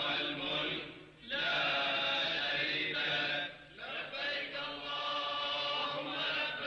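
Voices chanting in long, sustained phrases separated by short breaths.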